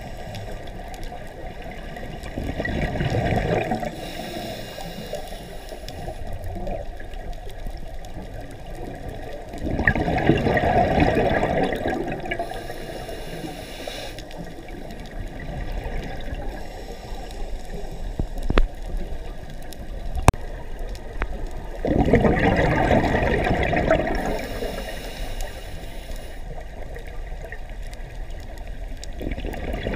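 Scuba diver's exhaled bubbles from the regulator, heard underwater through a GoPro housing: three bubbling bursts a few seconds long, roughly ten seconds apart, over a steady low underwater hiss, with two short clicks in between.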